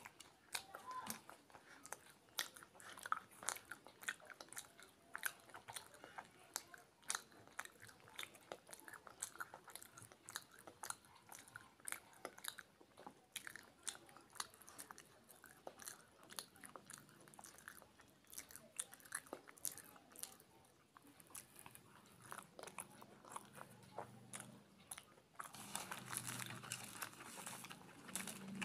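Close-up eating sounds: kochuri and chana alu sabji being chewed, with many short, irregular wet mouth clicks. Near the end comes a louder, rustling stretch as a crisp, puffed kochuri is torn by hand.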